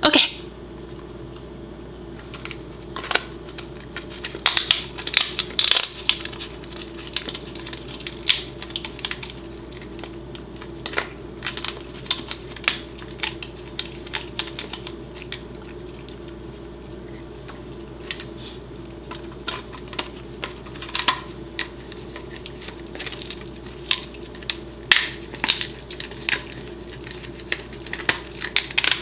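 A Pembroke Welsh Corgi chewing a dried buffalo trachea: irregular crunches and cracks as the hard, ridged cartilage breaks under her teeth.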